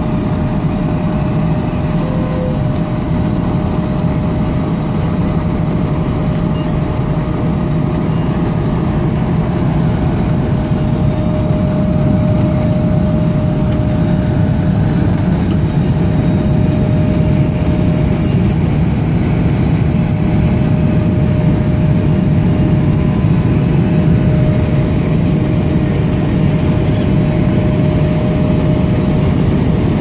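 A Wirtgen W 200i cold milling machine runs under load, its cutting drum grinding up the asphalt and its conveyor dropping millings into a steel dump truck body. The result is a loud, steady drone with a thin, high, steady whine running through most of it, growing a little louder about twelve seconds in.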